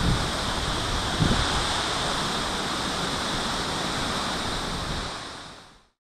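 Steady rushing of the tall Chagama Falls pouring down a rock face, with two brief low thumps of wind on the microphone, one at the start and one about a second in. The sound fades out near the end.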